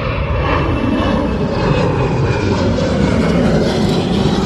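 Boeing 737 airliner's jet engines at takeoff power as it climbs out after lift-off, a loud steady roar of engine noise.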